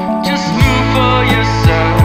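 Background music: a song with sustained bass notes and a drum beat.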